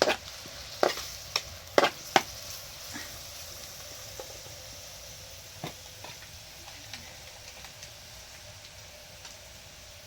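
Food sizzling in a pan, with a steady hiss and a few sharp knocks, most of them in the first couple of seconds.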